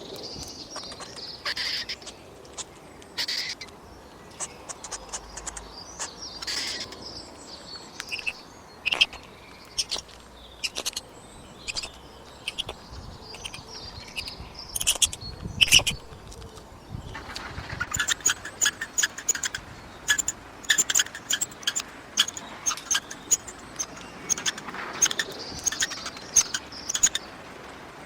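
Squirrel chattering: short, sharp, high chirps and clicks, scattered at first, then coming in quick rapid runs through the second half.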